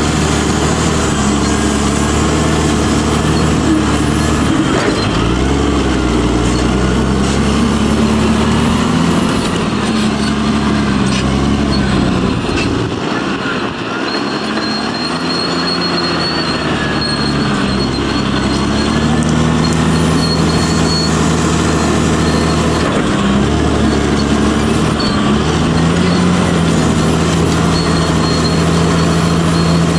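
Caterpillar D6R crawler bulldozer's diesel engine working under changing load, its pitch rising and falling as it pushes, easing off briefly about halfway through before climbing and holding again, with a thin high metallic squeal over it.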